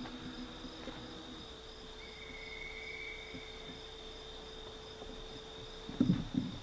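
A steady, high insect trill, cricket-like, with a low steady hum beneath it. A few loud thumps come near the end.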